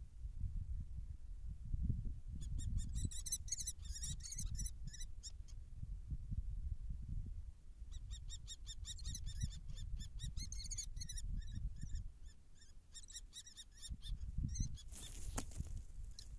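Bouts of rapid, high-pitched chattering bird calls over a low wind rumble on the microphone. About fifteen seconds in there is a brief loud rushing noise.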